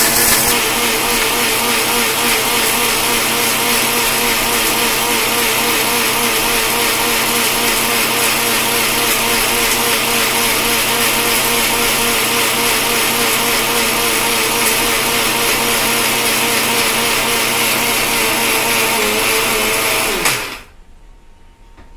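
Handheld mixer grinder's motor running steadily at high speed with a load in its small stainless steel jar. About 20 seconds in it is switched off and winds down quickly, its pitch falling.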